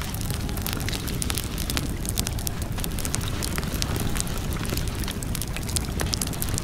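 Wood fire crackling, with frequent sharp irregular pops and snaps over a steady low rumble.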